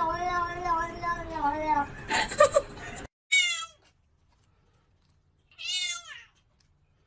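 Cats meowing: a long, wavering, drawn-out meow for the first two seconds, then two short meows from a kitten held on its back, the first about three seconds in and the second near the six-second mark, each falling in pitch.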